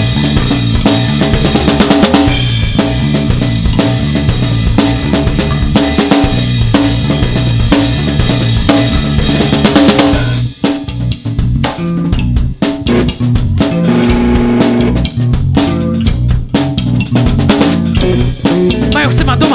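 Live band music led by a loud drum kit with bass. About ten seconds in, the dense full-band sound breaks into separate, sharper drum hits over steady bass notes.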